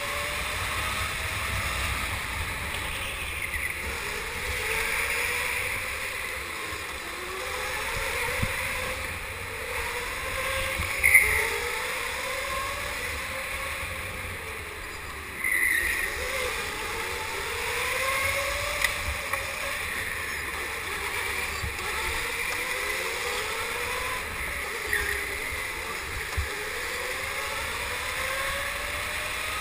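Go-karts running on the track, heard from on board: motor whine rising and falling in pitch as the karts speed up along the straights and slow into the corners, over a steady rushing noise. Two brief louder knocks, one about a third of the way in and one about halfway.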